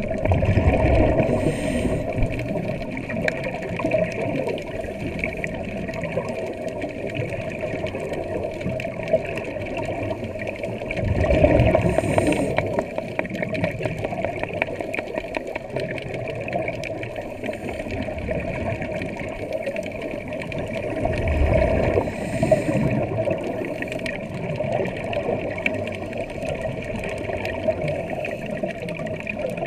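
Muffled underwater sound through a camera's waterproof housing: a steady hum of water noise, with a scuba diver's exhaled regulator bubbles rumbling and crackling in swells roughly every ten seconds, about a second, eleven seconds and twenty-one seconds in.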